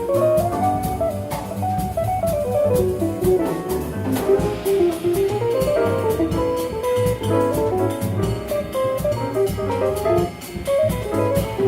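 Jazz quintet of saxophone, piano, double bass, drums and electric guitar playing live: a fast single-note melodic line runs over bass, drums and cymbals.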